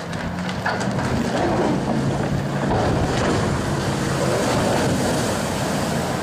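Rushing, splashing water as a ship's hull drops sideways into a canal in a side launch, throwing up a wall of spray and a wave. The noise swells about a second in and then holds steady.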